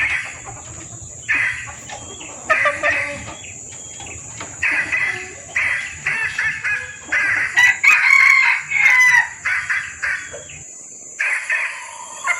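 Female junglefowl calling in repeated short bouts of clucking, cackling calls: a hen in breeding condition calling to males, as used in a hunting lure recording. A low background hum cuts off near the end.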